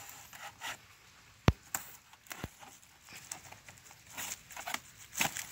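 Handling of a snake trap made of wire mesh wrapped in a woven plastic feed sack: the sack rustles and crinkles and the mesh clicks and scrapes under the hands, with one sharp click about one and a half seconds in.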